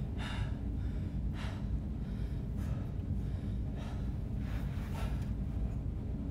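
A man breathing hard from exertion: several heavy breaths, roughly one a second, over a steady low hum.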